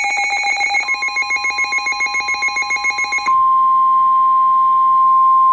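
Emergency alert tones: a rapid, pulsing electronic alarm buzz, joined about a second in by a steady high tone. From about three seconds in, the steady single tone goes on alone; this is the 1050 Hz warning alarm tone that precedes a National Weather Service warning broadcast.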